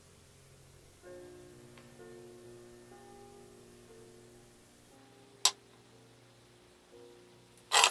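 Background music with slow, held notes, starting about a second in. Two sharp clicks cut through it, one about five and a half seconds in and a louder one near the end.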